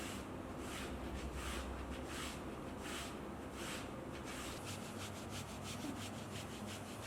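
Hands rubbing rhythmically over a patient's body during a massage-like treatment: slow, even strokes about one every three-quarters of a second, changing to quicker strokes about five a second a little past the middle.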